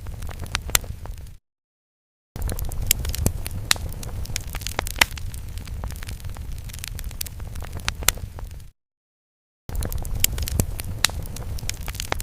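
Fire sound effect: a steady low rumble of flames with sharp crackles and pops, cutting out to dead silence twice for about a second each time.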